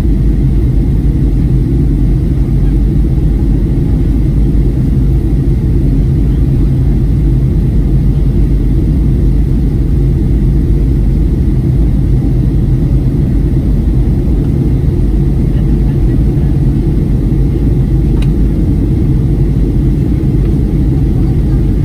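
Cabin noise of a Boeing 737-900 airliner: a steady low rumble that stays level throughout.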